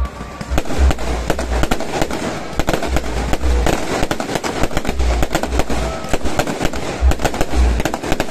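Aerial fireworks display going off: a dense run of sharp bangs and crackles in quick succession, with no let-up.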